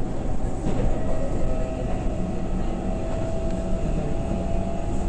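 Keihan 9000 series electric train running between stations, heard from inside the car: a low, continuous rumble of wheels on rail with a steady motor whine that slowly rises in pitch.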